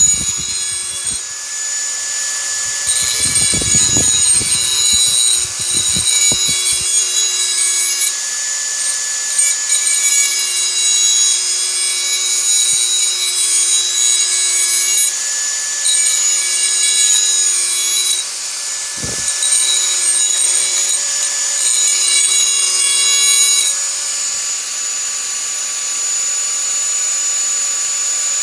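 Dremel 4000 rotary tool running at high speed with a steady high whine, grinding a tool's edge to sharpen it; the pitch shifts a few times as the load changes. A few knocks of handling sound through it, a cluster a few seconds in and one more past the middle.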